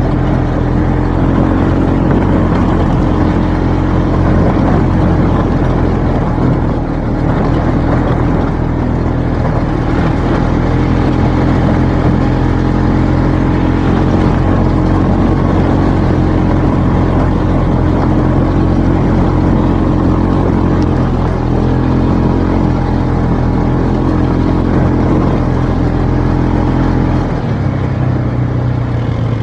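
Polaris RZR side-by-side's engine running steadily under way at an even pitch, with a noisy rush over it. Its lowest tones shift briefly near the end.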